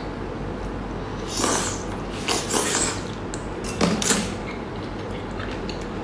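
Close-up wet slurping and sucking as seafood is drawn into the mouth in three short bursts, about a second and a half, two and a half and four seconds in.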